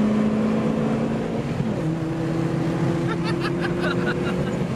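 Lada Priora's 16-valve VAZ four-cylinder engine running at steady revs, heard from inside the cabin; its pitch drops about two seconds in and then holds lower as the car eases off.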